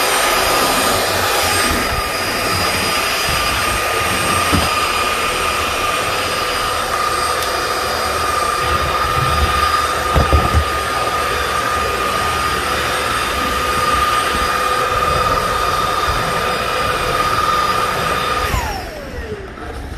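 MooSoo M24 cordless stick vacuum running on its turbo setting: a steady high motor whine over rushing air, with a couple of low knocks about halfway through. Near the end it is switched off and the whine winds down.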